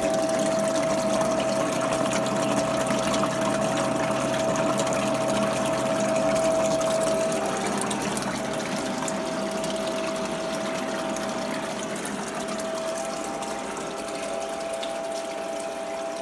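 Water rushing steadily down a mini Dream Mat reduction sluice, over the steady hum of the pump feeding it through a hose.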